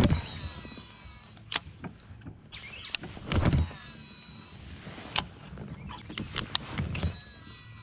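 Shimano Antares DC MD baitcasting reel being cranked on a retrieve: a faint whirring gear hum with sharp clicks, and a few louder low knocks of handling.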